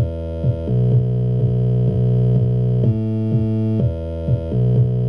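Synthesized electronic loop from SunVox: a square-wave synth bass playing low sustained notes that change pitch a few times, over a synthesized kick drum from the Kicker module hitting about twice a second, each hit a quick downward pitch drop. The kick and bass are mixed with no sidechain ducking, so the bass holds steady under the kicks.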